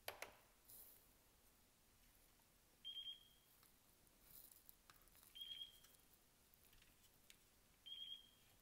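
Jumper T16 radio transmitter beeping in bind mode: three short, high beeps of the same pitch, about two and a half seconds apart, after a click at the start.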